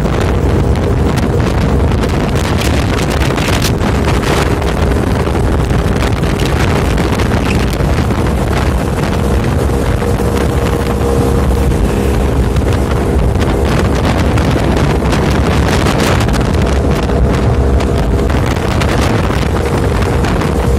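Motorboat engine running steadily at speed, with heavy wind buffeting the microphone.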